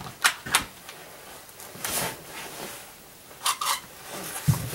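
A quick-release bar clamp being handled and worked, with sharp plastic-and-metal clicks: two near the start, a scrape about two seconds in, two more clicks about three and a half seconds in, and a low thump near the end.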